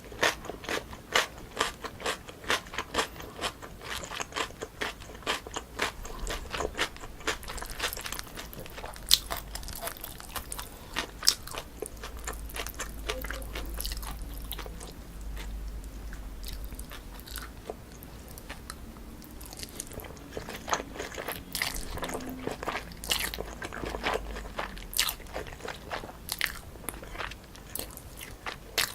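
Close-miked chewing of spicy mixed chewy noodles with crisp cucumber and apple, giving many sharp, rapid crunches. The crunches thin out midway and pick up again near the end.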